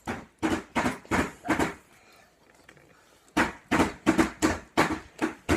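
Crunchy chewing of Doritos tortilla chips close to the microphone: a run of sharp crunches at about three a second, a short pause about two seconds in, then another run.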